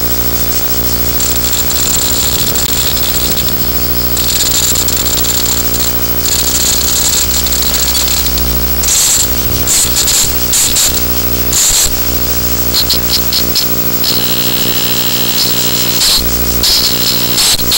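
A steady, loud buzz made of many even tones, with hiss on top. From about halfway through it repeatedly cuts out and breaks into short bursts of noise.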